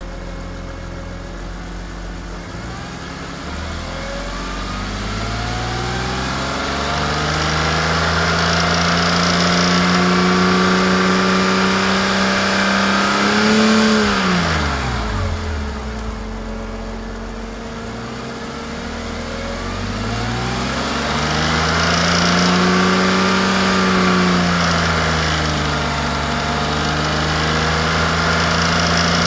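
BMW E46 M3's S54 3.2-litre straight-six idling, then slowly revved up and held, dropping sharply back to idle about halfway through, then rising again and settling at a raised speed. Over it runs the clatter that the owner takes for the VANOS rattling.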